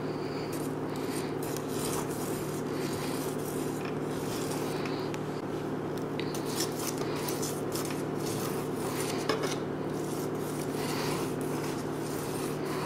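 An icing spatula pressing and smearing soft buttercream onto the sides of a layer cake for a crumb coat: a run of irregular soft rubbing and rasping strokes. A steady low hum runs underneath.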